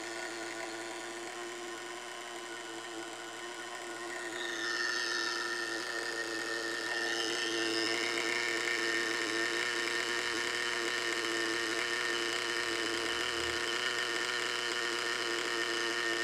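Small two-stroke nitro glow engine of a 1/10-scale RC monster truck running steadily on the bench during break-in, set rich. It gets somewhat louder about four seconds in.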